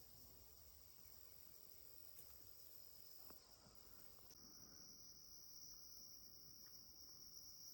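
Faint, steady high-pitched insect chorus drone. It becomes louder and narrower in pitch a little past halfway through.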